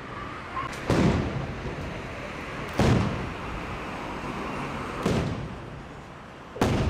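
Aerial firework shells bursting overhead: four loud bangs about two seconds apart, each trailing off in a rolling echo.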